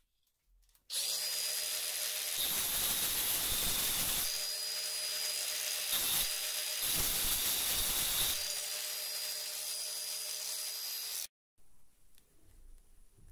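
Angle grinder with a cut-off disc running with a steady whine and grinding into a threaded steel bolt clamped in a vise, biting harder in about three bouts. It starts about a second in and cuts off abruptly near the end.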